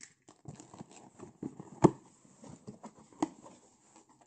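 Hands opening a taped cardboard shipping box: cardboard rustling and scraping as the flaps are worked open, with two sharp knocks about a second and a half apart, the first the louder.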